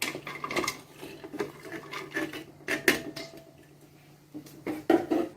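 Kitchen clatter: a string of irregular clinks and knocks from containers and utensils as the spice-paste ingredients are handled and put into a blender, with no blender motor running.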